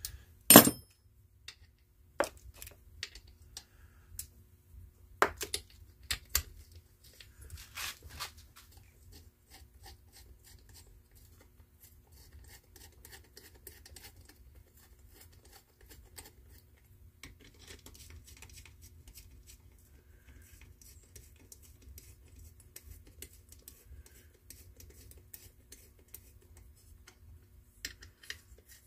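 Metal clinks and knocks as head bolts are handled and threaded by hand into the finned cylinder head of a small air-cooled lawnmower engine, with a sharp clack about half a second in and a few more in the first eight seconds. After that, faint scraping and small ticks of fingers working the bolts.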